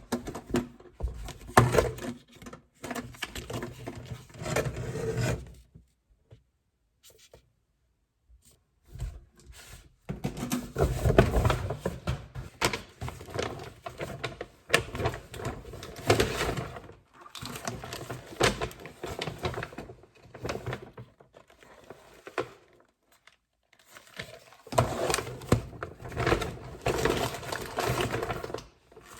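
Close handling sounds of objects: rustling, tapping and light scraping, in three bouts with quiet pauses between them.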